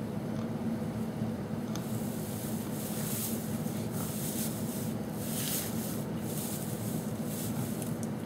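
Rustling in the hay bedding of a pig pen as a hand moves over the lying sow and down into the straw, in patches from about two seconds in, over a steady low background hum.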